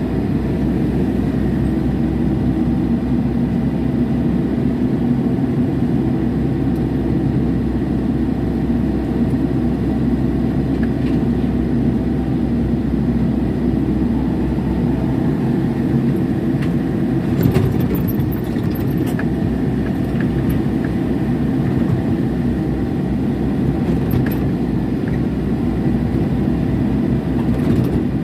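Mini excavator's diesel engine running steadily as the arm swings and digs, heard from the operator's cab. A few sharp knocks come about two-thirds of the way in.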